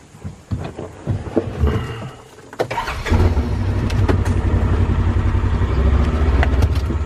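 Scattered clicks and knocks, then a farm vehicle's engine starts about three seconds in and runs steadily with a deep, even rumble.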